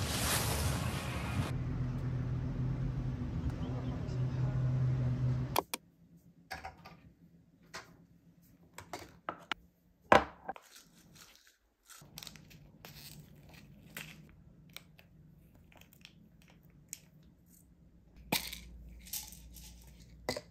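Background music for the first five or six seconds, cutting off abruptly. Then a drinking glass and a small jar handled on a kitchen counter: scattered clicks and knocks, the loudest about ten seconds in, with light crinkling.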